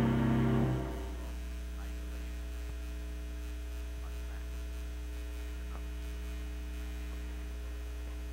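Closing music stops under a second in, leaving a steady electrical mains hum with a few faint steady tones above it.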